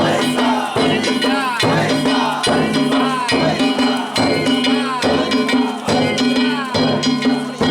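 Danjiri festival music of drums and metal gongs, struck in a steady, repeating beat a little under once a second, with ringing tones between the strikes.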